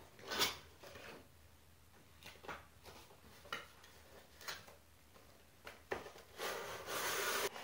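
Cardboard toy box being opened by hand: a few short scrapes and taps as the flaps are pried apart, then a longer rustle near the end.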